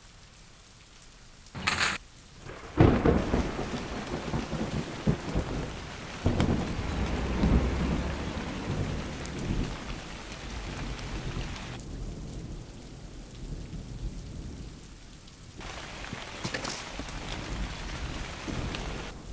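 Thunderstorm: steady rain falling, with a sharp crack about two seconds in followed by a long rumble of thunder that dies away after about ten seconds, leaving the rain hiss.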